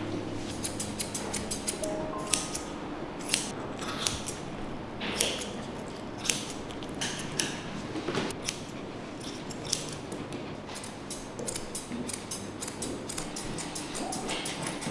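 Grooming scissors snipping through a Yorkshire terrier's coat: an irregular run of short, crisp snips, several a second at times.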